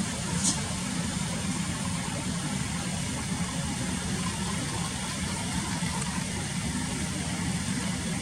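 Steady low engine-like rumble with a faint hiss, and one short high-pitched sound about half a second in.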